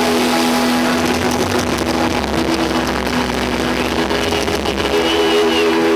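Live band music in an arena: held chords and notes over a constant wash of crowd noise, with no singing.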